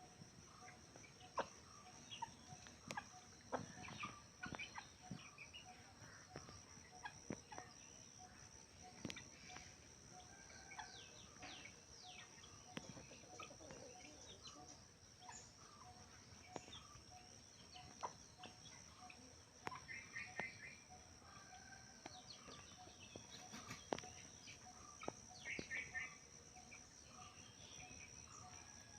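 Faint clucking of chickens, with scattered short clicks and chirps over a steady high background tone.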